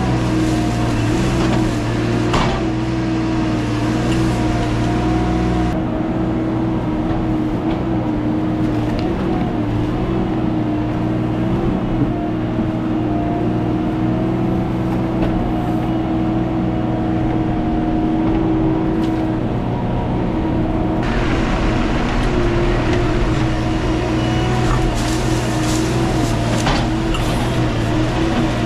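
Chainsaw engine running at steady high speed, its pitch holding nearly even throughout. A brighter, hissier edge sits on it for the first few seconds and again through the last third.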